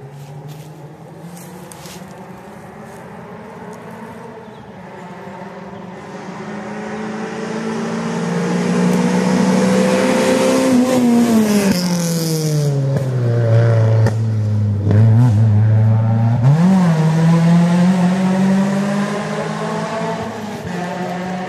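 Rally car engine at high revs, growing louder as it approaches; its pitch falls about halfway through, jumps a couple of times as the revs change, then holds steady as the car drives on.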